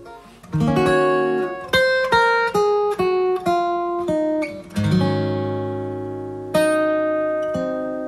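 Solo acoustic guitar played fingerstyle in the closing instrumental phrase of the song: a run of single plucked notes stepping downward, then three chords struck and left to ring and fade.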